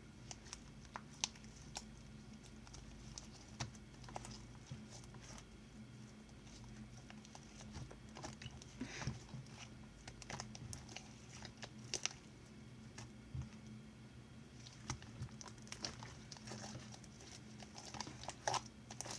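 Homemade slime thickened with shaving cream, lotion and activator being stretched and squeezed by hand: scattered small sticky clicks, pops and squelches at an irregular pace. A faint steady hum runs underneath.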